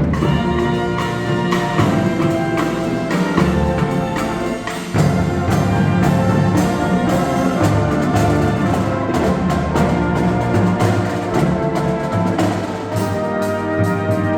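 Marching band playing: brass chords with trumpets over a steady beat of drums.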